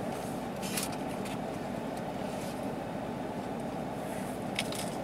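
Steady low hum of an idling vehicle heard from inside its cabin, with a couple of brief faint clicks about a second in and near the end.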